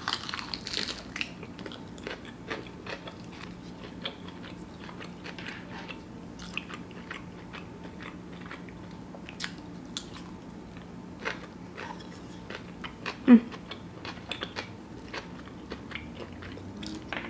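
Close-up mouth sounds of a person biting and chewing a bite of vegan sushi bake wrapped in roasted seaweed (nori) with cucumber: soft crunching and moist chewing with many small clicks. One brief louder sound comes about thirteen seconds in.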